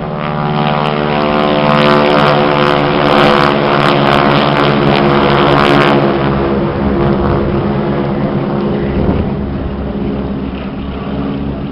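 Two smoke-trailing biplanes flying overhead, their piston engines and propellers making a steady drone that grows louder over the first couple of seconds and eases off after about six seconds as they pass.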